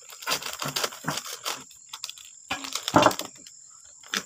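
Plastic packet crinkling and crackling as it is cut open with scissors and handled, in irregular sharp crackles, the loudest about three seconds in.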